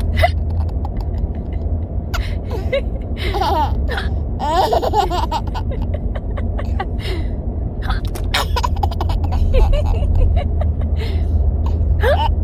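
Baby giggling in short bursts, over a steady low rumble.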